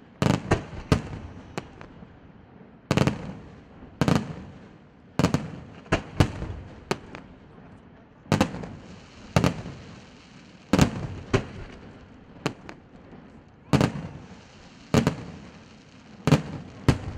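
Aerial firework shells bursting in steady succession: sharp bangs at irregular spacing, roughly one a second, with a few close pairs, each followed by an echoing tail.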